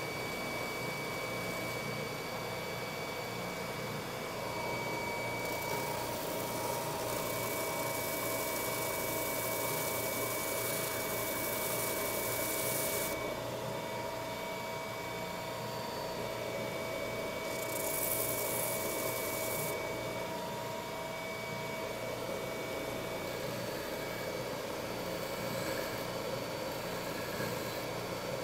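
Benchtop spindle sander's motor running steadily with a constant whine, while the end grain of a wooden mallet head is sanded against its drum sleeve; a brighter sanding hiss comes in twice, for about eight seconds from around five seconds in and again briefly near eighteen seconds.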